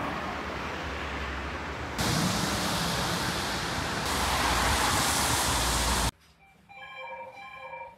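Steady rushing noise of wind blowing on the microphone, with a low rumble. It steps louder about two seconds in and again about four seconds in, then cuts off abruptly about six seconds in.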